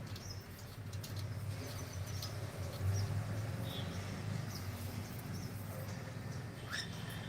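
Cockatiels chirping: scattered short, high chirps over a low steady hum.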